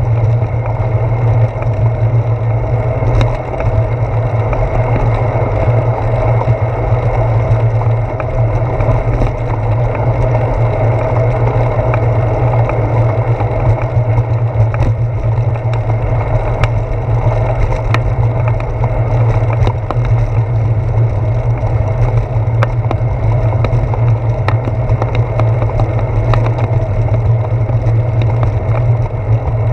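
Steady low rumble of a bicycle rolling along a paved path, picked up through a handlebar-mounted GoPro Hero 4 as tyre and road vibration, with scattered small clicks and rattles.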